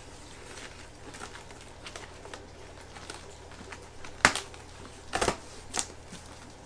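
Fingernails scratching and picking at packing tape on a cardboard box, then a sharp snap about four seconds in and a couple of short crackling rips as the tape pulls loose.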